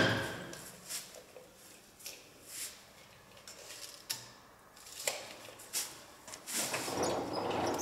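A sharp knock, then scattered light clicks and knocks of hands at a planer-thicknesser, winding its table handwheel. About six and a half seconds in, a steady rushing noise comes up as a woodworking machine starts.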